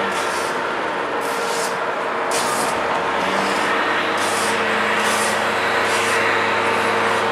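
An engine running at a steady speed, with a high hiss that swells and fades roughly once a second.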